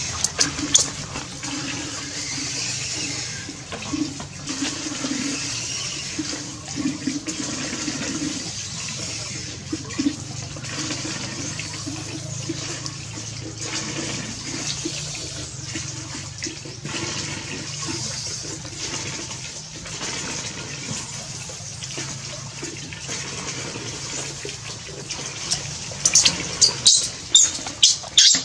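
Water splashing and sloshing in a plastic basin as a baby monkey is washed by hand. Near the end, a run of loud, short, shrill cries from the baby monkey.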